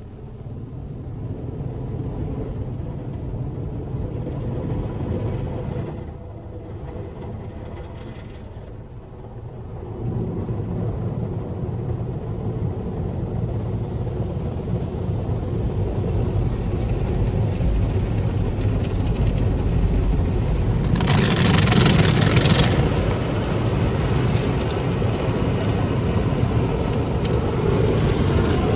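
Christ automatic car wash heard from inside the car: a steady low rumble of the brushes and water working over the bodywork. It drops back for a few seconds about a quarter of the way in, and swells into a loud hissing rush for about two seconds around two-thirds through.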